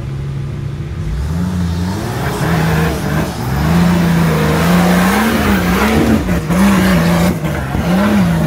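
Off-road 4x4's engine revving hard under load while climbing a steep dirt slope. It gets louder about four seconds in, and then the revs surge up and down several times over the noise of tyres scrabbling in loose dirt.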